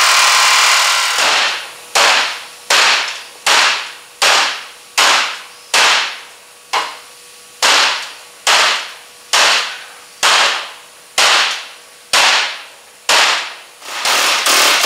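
Pneumatic air chisel hammering against the sheet steel of a car's front core support, breaking spot welds to separate the panels. One long burst comes first, then short trigger bursts at about one a second, coming faster near the end.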